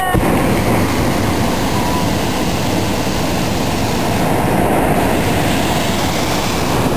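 Hot-air balloon's propane burner firing close overhead in one long, loud, steady blast.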